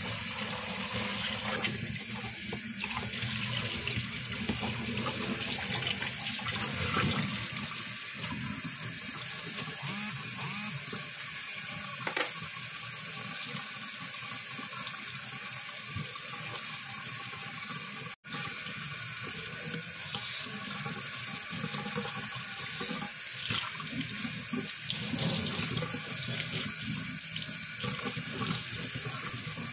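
Kitchen tap running a thin, steady stream of water into a stainless-steel sink drain, with a few louder splashing moments as a hand moves through the water. The sound cuts out for an instant about two-thirds of the way through.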